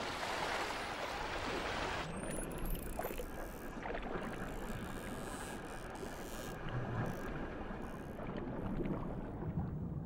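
Sea water rushing and splashing as dolphins leap through the surface. About two seconds in it changes to a duller, muffled underwater wash.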